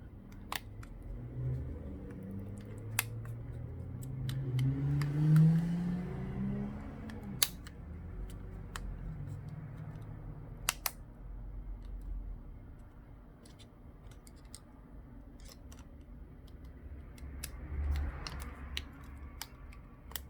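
Small sharp clicks and taps of a smartphone's parts and tools being handled during reassembly, as the battery cable connector is pressed on and internal parts are fitted. A low tone rises slowly and is loudest about five seconds in.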